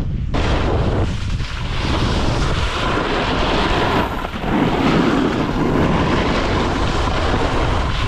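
Wind rushing over the microphone of a moving action camera, mixed with the steady hiss and scrape of snowboards sliding on snow. The sound changes abruptly about four seconds in.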